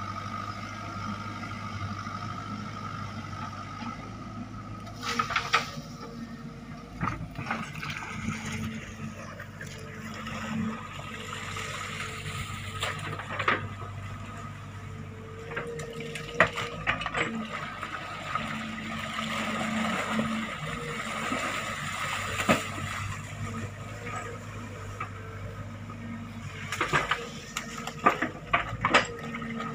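SANY hydraulic excavator's diesel engine running steadily while its bucket digs through wet, sloppy mud, with scattered clanks and knocks of the bucket and the squelch of the mud.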